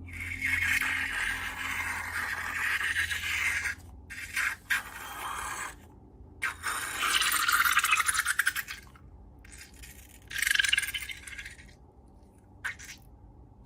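Slime and balloon material being handled: four bursts of wet, scraping squishing noise separated by short pauses, then a single click near the end.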